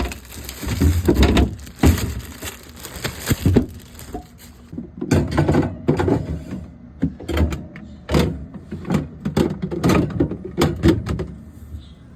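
Containers and food items being set into a refrigerator and moved around on its shelves: irregular knocks, clicks and clatter of plastic and glass.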